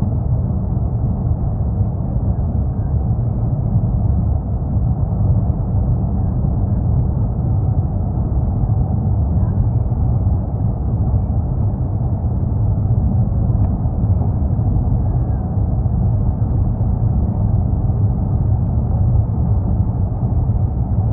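Steady low road and engine rumble of a car driving, heard inside its cabin.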